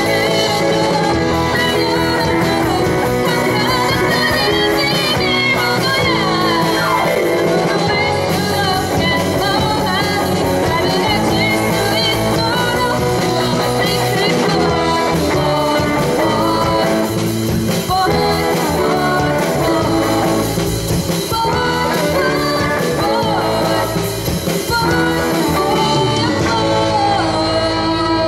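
A live rock-pop band playing: a female vocalist singing over electric guitars and a drum kit.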